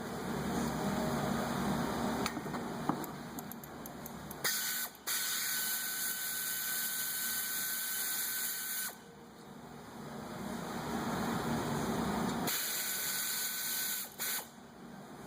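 Pneumatic air ratchet running in long bursts while backing out the 17 mm brake caliper bracket bolts, switching between a lower rattling run and a brighter hissing whine with air exhaust hiss as the bolts spin free.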